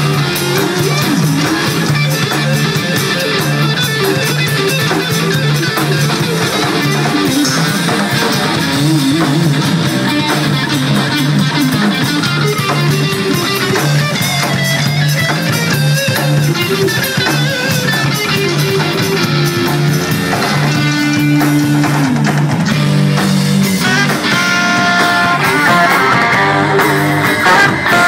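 Live jazz-funk band playing: electric guitar over bass guitar and drum kit, with an alto saxophone coming in with held notes near the end.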